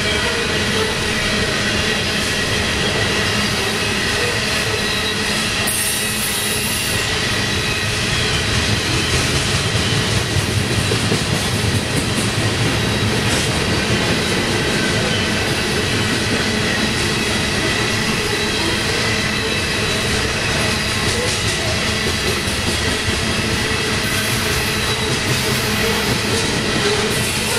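Freight train of covered hopper cars rolling past on steel rails: a steady wheel-on-rail rumble with clickety-clack over the rail joints and a thin, steady wheel squeal.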